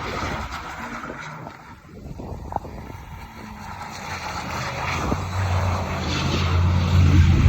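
A motor vehicle's engine running with a steady low hum that grows steadily louder over the last few seconds, as it comes closer or works harder on the snow.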